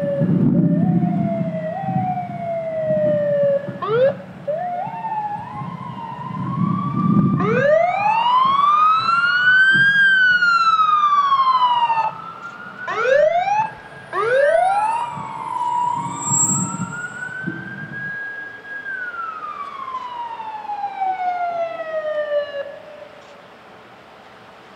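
Sirens of several arriving emergency vehicles sounding together: long wails rising and falling, mixed with short quick yelps, over a low rumble for most of the time. The last siren winds down and stops about a second before the end.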